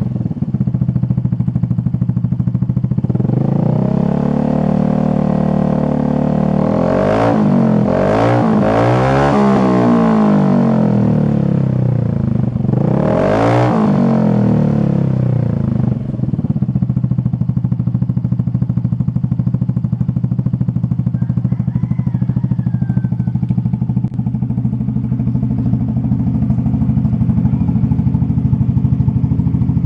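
Yamaha Tricity scooter's single-cylinder four-stroke engine running through an aftermarket Nob1 Titan Series exhaust with the dB killer removed. It idles, is blipped up in revs several times in quick succession in the first half, then settles back to a steady idle for the rest.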